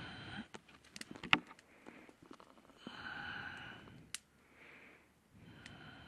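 A person breathing heavily right at the microphone: a few long breaths about a second each. A single sharp snap a little over a second in is the loudest sound.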